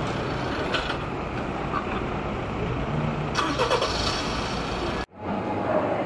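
City street traffic: cars running past on a busy road. About five seconds in it cuts off suddenly, giving way to the general background noise of a large indoor hall.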